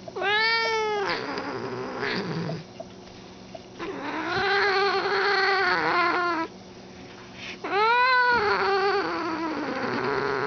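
Long-haired orange tabby cat yowling three times, each call rising and then falling in pitch: a short one near the start, then two drawn-out ones of a few seconds each.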